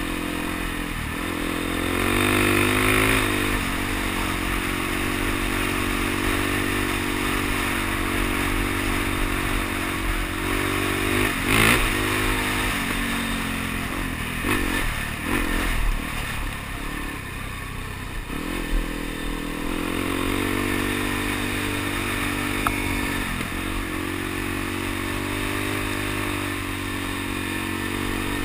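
Suzuki DR-Z dual-sport motorcycle's single-cylinder four-stroke engine running under way, its pitch rising and falling several times with throttle and gear changes, with the bike clattering over gravel. A sharp knock about twelve seconds in.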